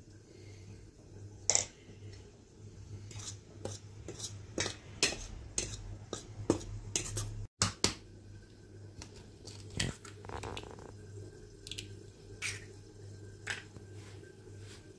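Metal cutlery clinking and scraping against a stainless steel mixing bowl of flour in sharp, irregular clinks, over a steady low hum.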